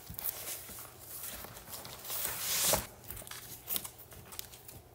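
A spiral-bound study book being picked up and handled: paper and cover rustling and brushing, with a few sharp clicks. The loudest part is a swelling rustle about two to three seconds in that ends in a click.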